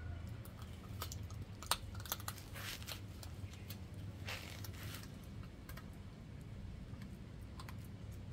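A puppy chewing duck bone: irregular sharp clicks and crunches of teeth on bone, the loudest two within the first two seconds. A steady low hum runs underneath.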